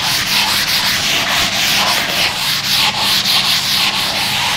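A handheld duster scrubbing chalk writing off a chalkboard in quick back-and-forth strokes, a loud dry rubbing that stops near the end.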